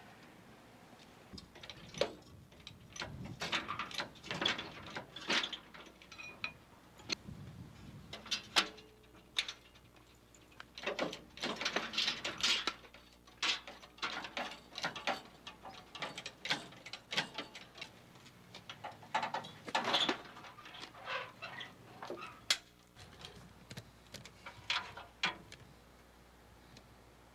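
Irregular mechanical clicking and clattering, in uneven clusters with short pauses, busiest around the middle.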